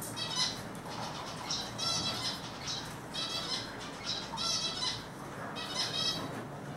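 Eurasian siskin calling in repeated short bursts of quick, high twittering notes, about seven bursts in all.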